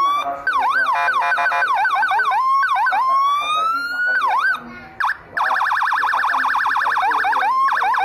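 Homemade electronic siren module sounding through a horn loudspeaker, switched between tones: fast up-and-down yelping sweeps, a slow rising wail, a brief cut-out about four and a half seconds in, then a rapid warble of about ten cycles a second.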